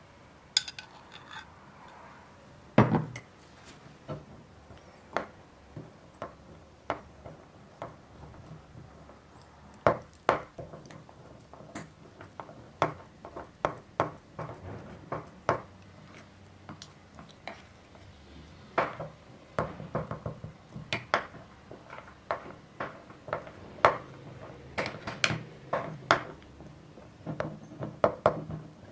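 Irregular sharp knocks and clinks of hard objects being handled, some ringing briefly, a few every second or two, with the loudest knock about three seconds in.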